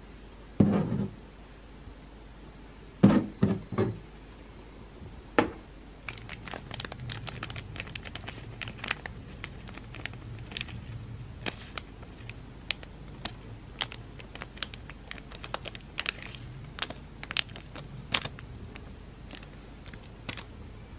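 A few dull knocks in the first six seconds as the greens are set in the ceramic bowl, then light crinkling and crackling, with many small sharp clicks, while dried bonito flakes are scattered over the greens.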